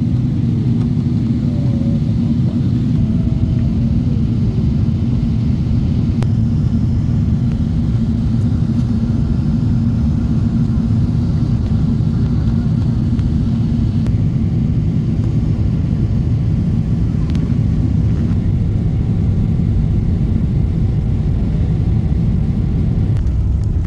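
Steady low drone of an airliner's engines heard inside the passenger cabin, with a faint click about six seconds in.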